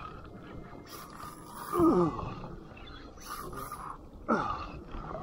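Sea lion calling three times, about two seconds apart, each call sliding steeply down in pitch; the middle one is the loudest.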